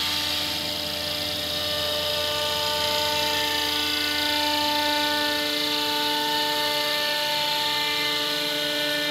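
Electric radio-controlled helicopter on Align T-Rex 700 DFC mechanics flying: a steady whine from the electric motor and drivetrain over the whoosh of the spinning rotor blades, holding an even pitch as it lifts off and climbs away.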